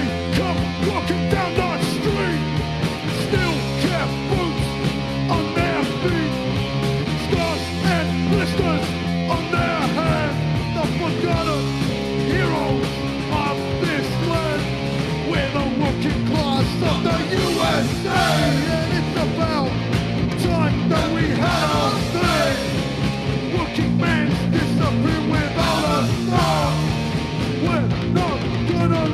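Hardcore punk song: band music with guitar, bass and drums, the drumming getting busier about halfway through.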